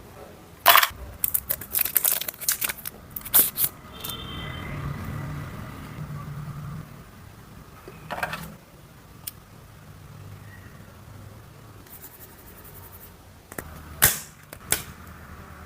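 Smartphone box and packaging handled during an unboxing: clusters of sharp clicks, crinkles and rustles, the busiest about a second in, another around eight seconds in and two sharp clicks near the end.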